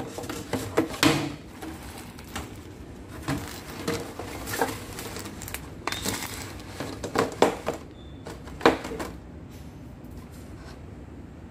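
Irregular light knocks and clicks, a dozen or so, over a low steady rumble, dying away about nine seconds in.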